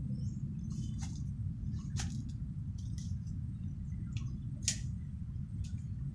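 Tree branches and leaves rustling and snapping as a climber moves through them: about six short, sharp clicks and rustles, the loudest a little before five seconds in, over a steady low rumble.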